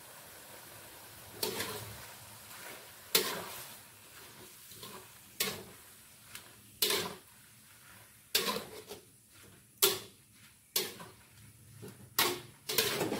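Metal spatula scraping and clacking against an aluminium wok while pak choy leaves are stir-fried, a stroke roughly every second, starting about a second and a half in.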